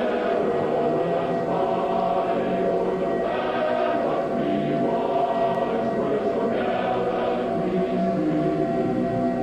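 A choir singing the national anthem in long held chords that change every second or two.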